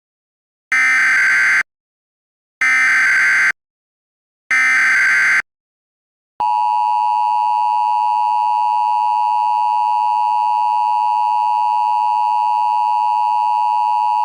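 Emergency Alert System SAME header: three short bursts of data tones, each just under a second long and about a second apart. About six seconds in, the steady two-tone EAS attention signal starts and holds. Together they announce an incoming alert.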